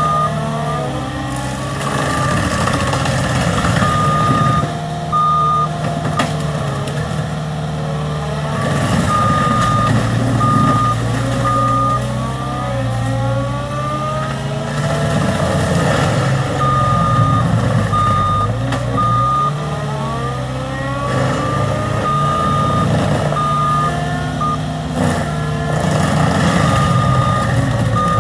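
CAT skid steer loader working, its diesel engine running with the revs shifting up and down and rising and falling whines over it. Its backup alarm beeps in several stretches as the machine reverses.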